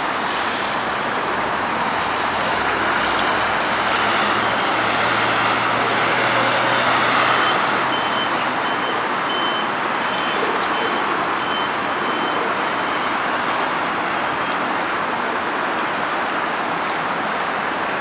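Steady hum of road traffic on the highway bridge overhead. A heavy vehicle drones low through the first half, and a faint repeated high beep of a reversing alarm sounds through the middle.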